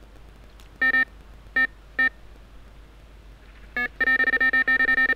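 Electronic carp bite alarm beeping: four single beeps spread over the first four seconds, then a fast string of beeps from about four seconds in. The alarm is signalling a take, with a fish pulling line off the rod.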